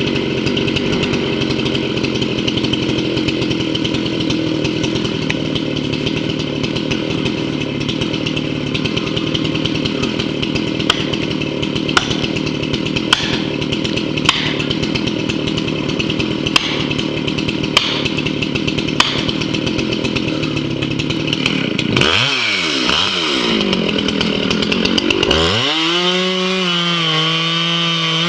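Two-stroke chainsaw running steadily under load as it cuts timber, with a series of sharp clicks in the middle. Near the end the engine pitch dips and swoops, then settles at high revs.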